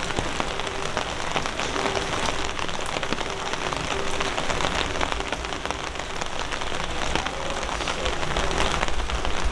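Steady rain falling on the street, a dense even patter of drops.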